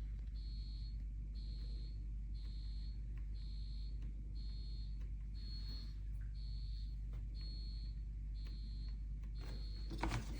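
An electronic beeper sounds one high, steady beep after another at an even pace, about one and a half a second, over a low steady hum. A brief clatter comes near the end.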